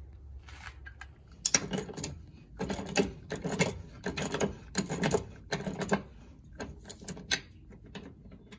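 Socket ratchet wrench clicking in a series of short bursts of rapid clicks as it tightens the outboard motor's mounting bolts through the boat's transom.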